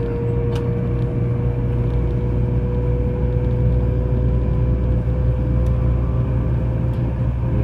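Taiwan High Speed Rail 700T train heard from inside the passenger cabin while running at speed: a steady low rumble with a thin whine that rises slowly in pitch.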